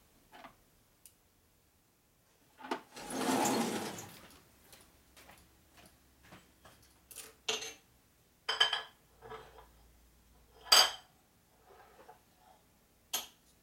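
Metal hand tools and parts clattering: a longer rattling clatter about three seconds in, then several separate sharp metallic clinks with a short ring.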